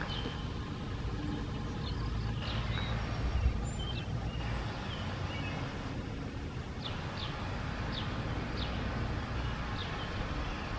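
Short, high bird chirps, about ten of them scattered over a steady low rumble.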